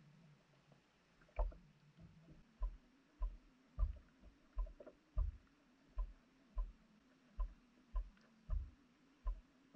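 A steady run of short, dull thumps, each with a light click, roughly every two-thirds of a second, starting about a second and a half in, heard muffled through an underwater camera housing.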